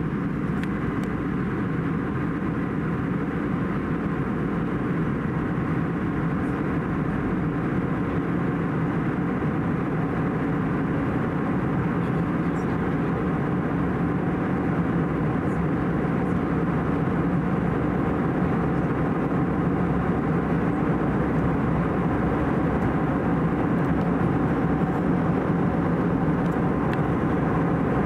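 Steady in-flight cabin noise of an Airbus A320-214: airflow rushing over the fuselage and the drone of its CFM56 engines, growing slightly louder toward the end.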